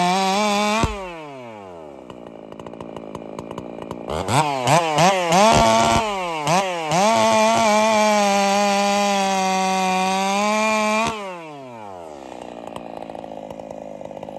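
Race-tuned Poulan Pro chainsaw with C83 chain on an 8-pin sprocket, running at full throttle and then dropping to idle about a second in. A few seconds later the throttle is blipped several times, then held wide open for about four seconds before falling back to idle.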